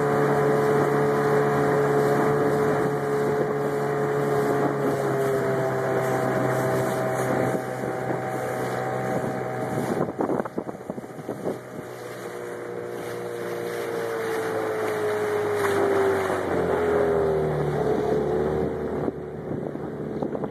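Small outboard motor running steadily while the boat cruises, with wind on the microphone. The engine note drops gradually in the second half as the motor is throttled back, with a brief dip and a few knocks about halfway through.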